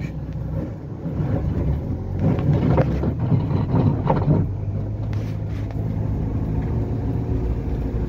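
Vehicle engine running and tyres working through a muddy, potholed dirt road, heard from inside the cabin as a steady low hum; the engine note wavers and rises and falls for a couple of seconds in the middle.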